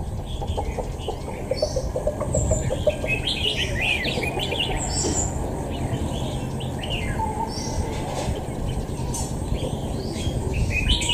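Caged oriental magpie-robins singing against each other in a song-battle face-off, a rapid stream of varied whistles and sharp chirps that is densest about three to five seconds in. A steady low rumble runs underneath.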